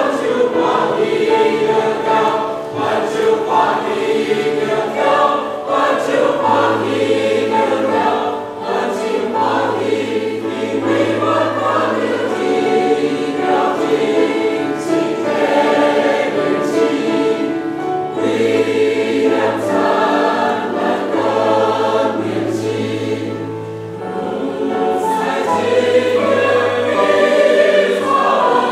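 Mixed church choir of men's and women's voices singing a Christmas anthem in parts, the low voices holding notes beneath the upper parts.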